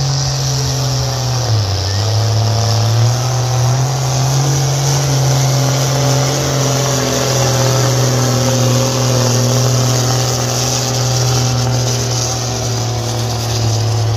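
Diesel engine of a pulling tractor running flat out under heavy load as it drags a weight-transfer sled, pouring black smoke. The engine note dips briefly about a second and a half in, then recovers and holds a steady high pitch.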